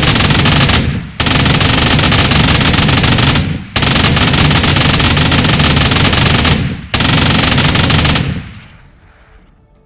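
M134D Minigun, a six-barrel rotary 7.62 mm machine gun, firing in long continuous bursts at a very high rate, with short breaks about one, three and a half, and six and a half seconds in. The last burst stops about eight seconds in and the sound dies away.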